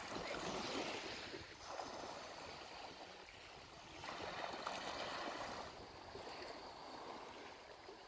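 Small sea waves washing onto the shore, a rushing hiss that swells and fades in surges every couple of seconds.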